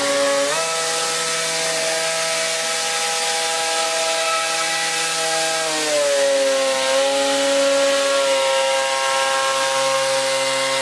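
Propeller of a 16mm-scale model aerocar running along the track, making a steady, buzzing whine; the pitch steps up about half a second in and slides down again around six seconds in.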